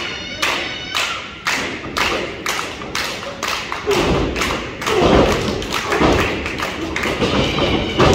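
Rhythmic clapping, about two claps a second, with heavy thuds of bodies and feet on the wrestling ring's canvas about once a second in the second half.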